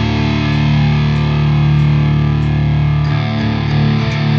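Drumless progressive metal backing track at 95 BPM: distorted electric guitars hold sustained chords with no drums, moving to a new chord about three seconds in.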